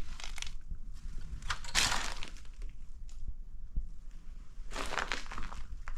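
Debris crunching and crackling in three separate bursts, with scattered sharp clicks between them.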